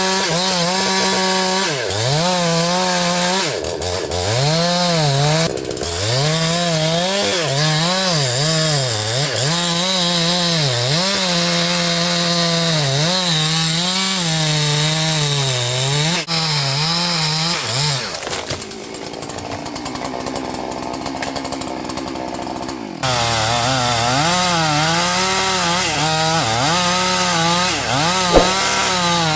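Chainsaw cutting through a large tree trunk, its engine note repeatedly dipping as the chain bogs in the wood and climbing back up. About two-thirds of the way through, the engine note gives way for a few seconds to a quieter, rougher noise, then the saw picks up again.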